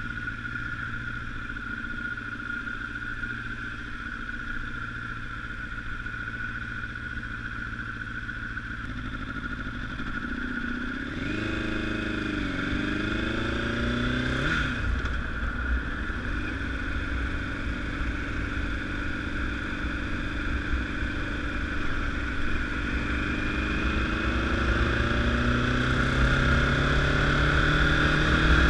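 Honda CBR1000RR's inline-four engine running while riding. About halfway through the revs dip and climb in quick steps through gear changes, then rise steadily and grow louder as the bike accelerates.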